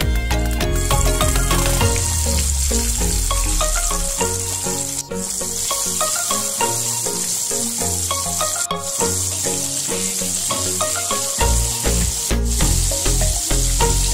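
Flour-coated chicken pieces deep-frying in hot oil, a steady sizzle that starts about a second in, with background music playing over it.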